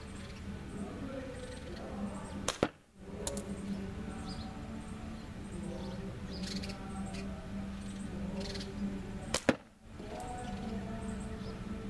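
Two sharp cracks about seven seconds apart, slingshot ammo striking the playing-card target rig at a card-cut shoot, with a fainter click just after the first. Birds chirp and a steady low hum runs underneath.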